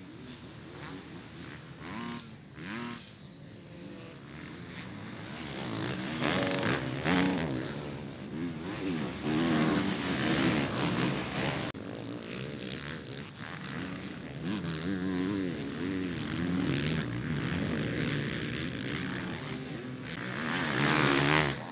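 Two-stroke motocross bike engines revving up and dropping back again and again, more than one bike at a time. Fainter for the first few seconds, louder from about six seconds in.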